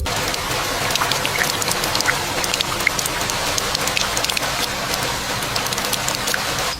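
Steady rain falling, a dense even hiss with many separate drop ticks.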